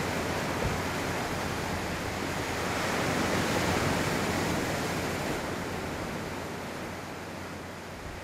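Rushing water: an even noise that swells to a peak about halfway through and then slowly eases off.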